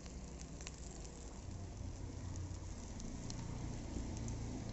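Open wood fire crackling under a pan of fish frying in oil, with scattered sharp crackles and a low rumble that builds from about a second and a half in.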